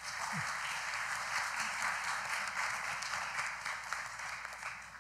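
An audience applauding, many hands clapping at once, fading out near the end.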